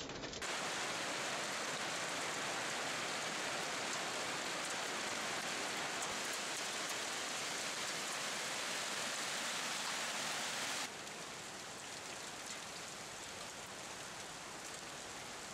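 Heavy downpour of rain and hail, a dense steady hiss of water and ice hitting the ground and parked cars. About eleven seconds in it drops suddenly to a quieter steady hiss.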